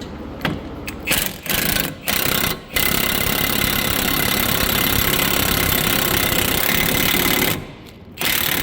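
Power wrench running on a nut or bolt: three short bursts, then one long continuous run of about five seconds, a pause, and one more short burst near the end.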